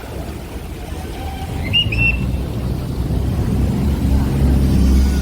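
A river ferry's engine running with a low rumble that grows louder toward the end, with a brief high whistle about two seconds in.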